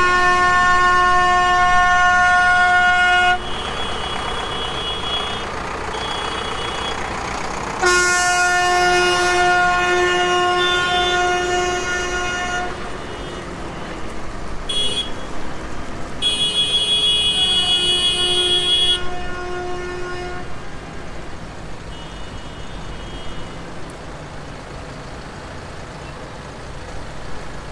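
Tractor horns sounding in long held blasts, one after another, over the engines of tractors rolling past. The longest blasts come at the start and about eight seconds in, then shorter toots, leaving only the engines near the end.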